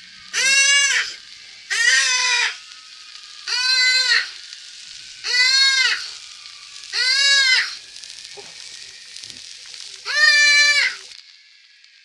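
Badly injured deer bleating in distress: six calls, each rising then falling in pitch, about every two seconds, over a steady hiss.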